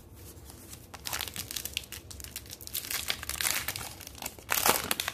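A foil trading-card pack wrapper crinkling as it is handled and torn open, with a louder rip near the end.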